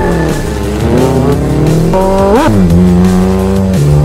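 Performance engines revving hard on a drag-race start line, their pitch sweeping up and down, with one sharp rev rising and falling about two and a half seconds in.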